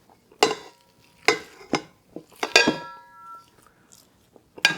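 Kitchen utensils and dishes knocking and clinking against each other, about five separate strikes. A couple of them ring on briefly, about two and a half seconds in.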